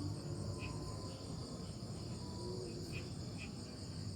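Steady high-pitched chorus of crickets and other insects, with a few faint short chirps.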